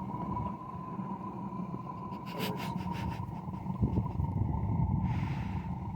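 Propane torch feeding a small backyard melting furnace: steady gas-burner rumble with a thin, steady whistle over it, and a brief rush of hiss about five seconds in.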